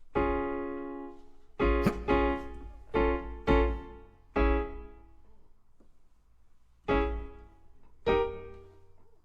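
Piano chords played slowly, each struck and left to ring and fade. Seven or so come in the first half, then a pause of a couple of seconds, then two more near the end.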